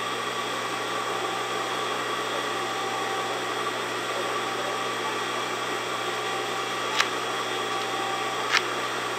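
Industrial sewing machine's motor running steadily without stitching, an even hum with several constant tones. Two brief clicks come in the last couple of seconds.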